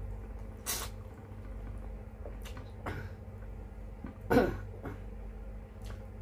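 A person coughs once, sharply, about four seconds in, between short mouth and eating clicks. A steady low hum runs underneath.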